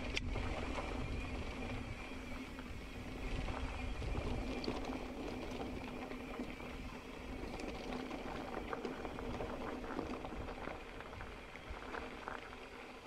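Mountain bike rolling along a dirt trail: a steady crackle of tyres over loose grit and gravel, with wind rumbling on the microphone, strongest in the first few seconds.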